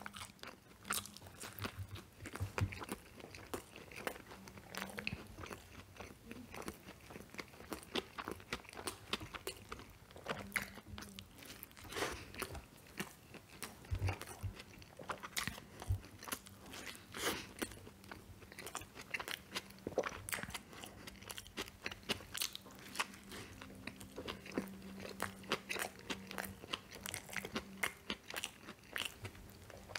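Close-miked biting and chewing of a McDonald's Quarter Pounder with Cheese: irregular mouth clicks and smacks, several a second, with an occasional louder bite.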